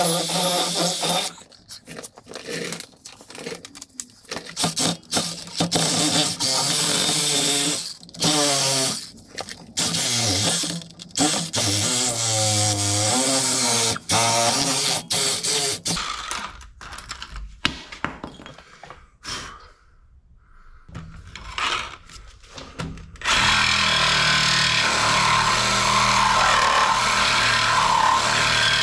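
Cordless drill boring through the rubber centre of a car's lower control arm bushing, run in short bursts with its speed rising and falling. Near the end a power tool runs steadily for several seconds.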